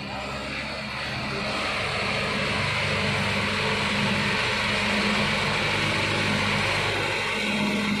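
A heavy road-construction machine's engine running steadily with a broad hiss over it, growing louder over the first couple of seconds and then holding level.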